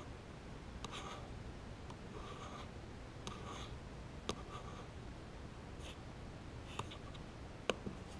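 Faint, scattered clicks and taps of a computer mouse and keyboard, a few sharp clicks spaced a second or so apart.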